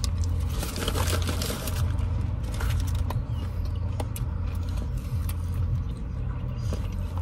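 Steady low rumble inside a car cabin, with scattered light crackles and clicks of a paper food wrapper being handled.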